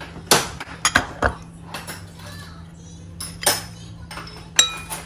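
Cutlery knocking and clinking against bowls during a noodle meal: several sharp, separate clinks, the last one near the end ringing briefly.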